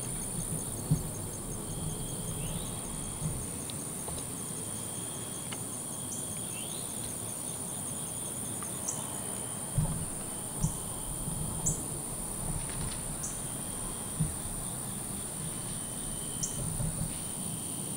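Evening insect chorus: a steady high-pitched drone with a faster pulsing trill beneath it and short chirps every second or two. A few dull thumps stand out, the loudest about a second in and twice around ten seconds in.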